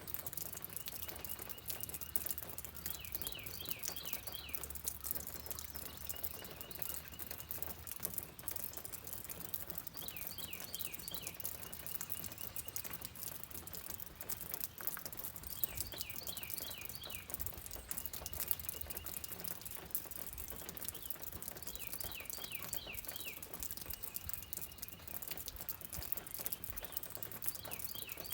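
Steady rain patter with a bird singing over it. The bird repeats the same phrase about every six seconds: a short steady whistle, then a quick run of four or five falling notes.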